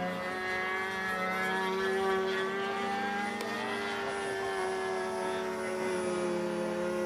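Radio-controlled model Panther jet's engine as the jet flies past, a steady whine whose pitch drifts slightly and dips a little near the end.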